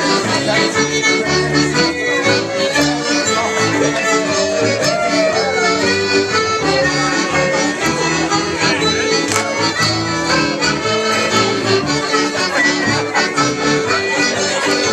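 Live folk dance band music from a fiddle and keyboard, with an accordion-like reedy sound prominent, played steadily for dancing.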